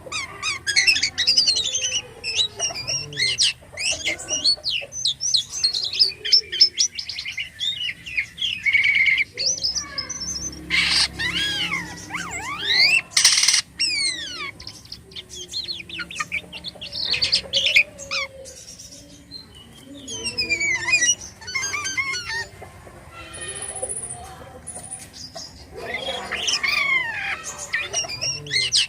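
Jalak kapas starling singing vigorously: a long, busy run of varied chirps, rapid trills and gliding whistles, broken by brief pauses.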